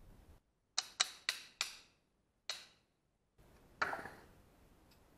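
Five sharp metallic clinks, each ringing briefly, from small steel handle screws being handled. Near four seconds, a steel tool knocks and scrapes in the screw hole of the bare knife tang held in a vise.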